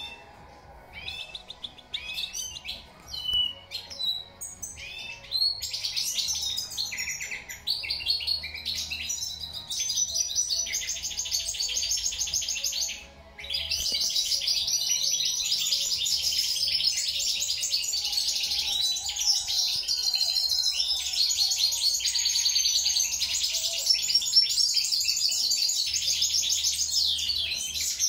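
European goldfinch singing: a few separate high chirps at first, then from about five seconds in a fast, continuous twittering song, with a brief pause about halfway through.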